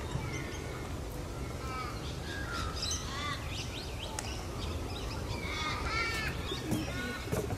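Several separate harsh, caw-like animal calls, one about a second and a half in, a cluster around three seconds and another near six seconds, over a steady outdoor background.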